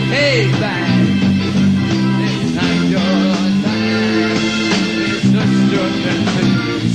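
Live rock band playing loudly with electric guitars and a steady beat, with a singer's voice gliding in pitch near the start.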